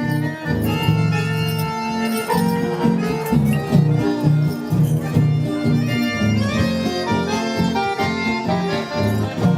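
Instrumental chamamé music: an accordion playing held melody notes over a pulsing bass line.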